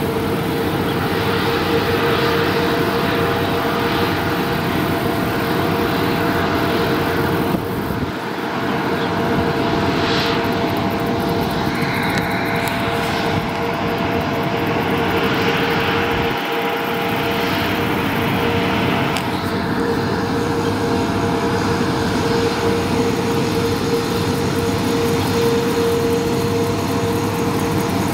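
Airbus A330-900neo's Rolls-Royce Trent 7000 turbofan engines running at taxi thrust: a steady jet whine with a held tone in it.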